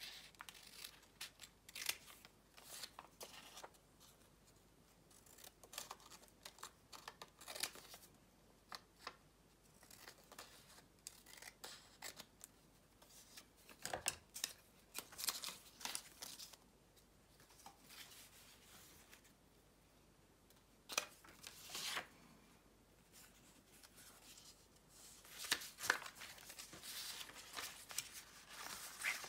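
Small scissors snipping through paper in short cuts, with paper scraps rustling as they are handled and shuffled; the papers are moved around near the end.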